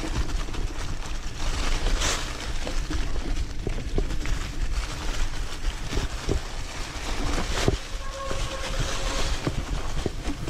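Off-road motorcycle riding over a rough dirt trail: a steady low engine rumble under heavy wind noise on the microphone, with frequent knocks and rattles from the bumps.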